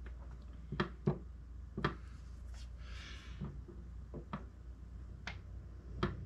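Scattered light clicks and taps of small parts being handled and seated in an open airsoft AK gearbox shell, with a brief rustle about three seconds in and a low steady hum underneath.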